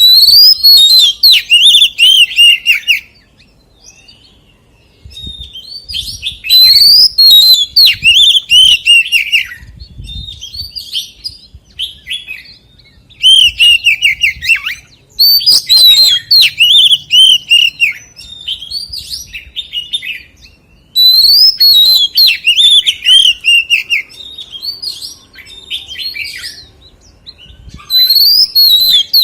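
Oriental magpie-robin singing: loud, varied phrases of rapid whistled notes, each phrase lasting a few seconds with short pauses between them.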